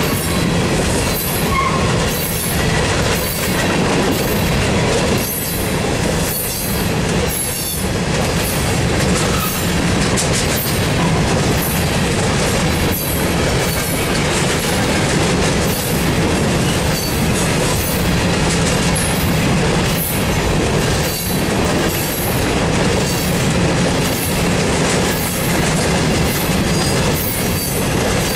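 Freight train of covered hopper cars rolling past at close range: a steady rumble of steel wheels on rail, with a regular clack as each wheel set passes.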